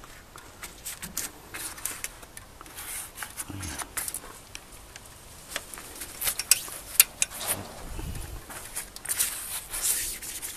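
Handling noise: irregular clicks, taps and rustling as a handheld camera is moved around a car's engine bay and body and parts are touched, busier in the second half.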